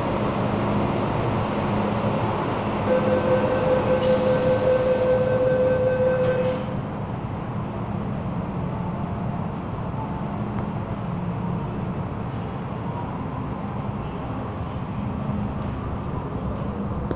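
MTR M-Train at a station: a pulsing warning tone sounds for about three and a half seconds, starting about three seconds in, as the doors close. It cuts off and the train pulls away with a steady rumble.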